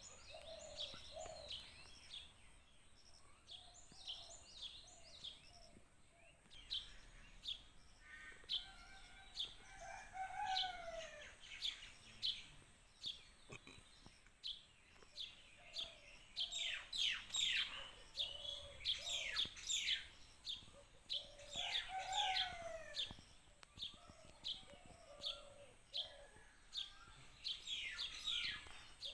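Morning bird chorus: many small birds chirping in quick repeated notes, with several louder calls that fall in pitch. A rooster crows in the background around ten seconds in.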